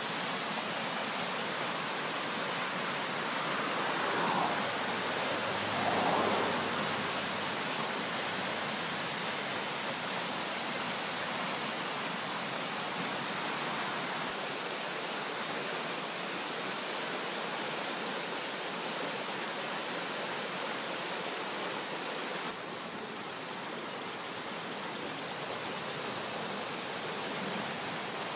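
A swollen, muddy brook in spate rushing fast over rocks: a steady, even rush of water, briefly louder twice about four and six seconds in.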